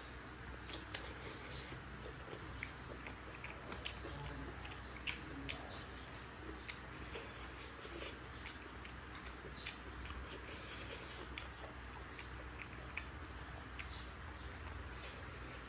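Eating sounds: chewing and mouth clicks, with scattered sharp ticks over a steady low hum.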